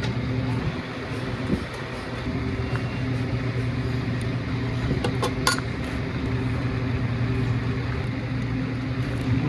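A steady low mechanical hum, with a few sharp metallic clinks about five seconds in.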